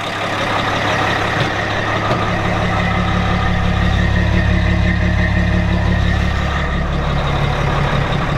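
1990 Peterbilt semi's turbocharged six-cylinder Caterpillar diesel idling steadily, soon after an old start from sitting unused all winter.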